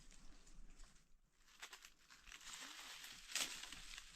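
Faint rustling and crinkling with a few light clicks, and a slightly louder rustle about three seconds in.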